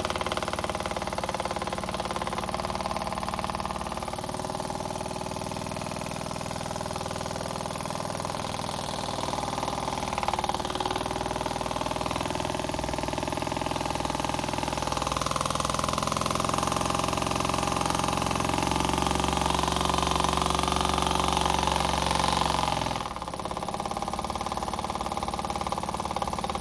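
Small single-cylinder oscillating (wobbler) model engine running on air, a steady pitched hum whose pitch wanders as its speed changes. It runs louder for several seconds past the middle, then drops back near the end.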